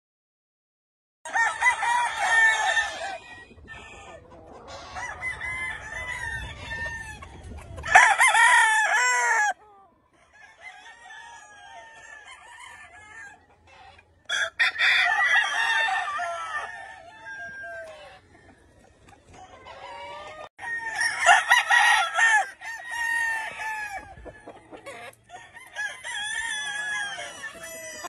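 Gamecock roosters crowing repeatedly, several crows overlapping, starting about a second in; the loudest crow comes about eight seconds in.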